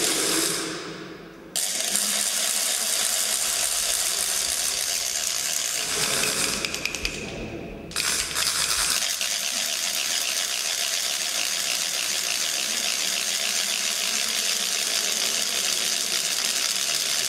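Wooden Holy Week noisemakers, carraus (ratchet rattles) and matraques (clapper boards), whirled and shaken in a rapid, dense wooden clatter. The clatter dies away briefly about half a second in and sags again around six seconds in before starting up again.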